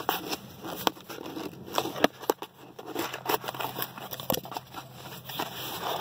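Small cardboard box being opened by hand, its flaps pulled apart: irregular crackles, clicks and scrapes of cardboard.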